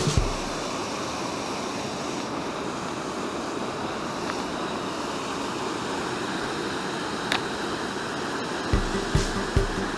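Steady rushing of water from a mountain stream or water spilling over a weir, a constant even noise. Background music with a regular beat comes back in near the end.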